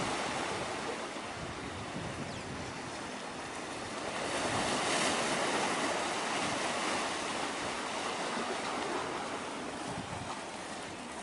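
Steady rushing of wind and waves at the waterfront, with wind on the microphone; it swells about four seconds in and eases off near the end.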